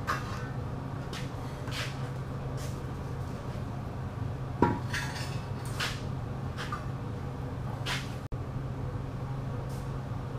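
Welded steel beam sections clanking and scraping against each other and the concrete floor as they are lifted and stood up on end: a string of short, irregular metallic knocks, the loudest about halfway through, over a steady low hum.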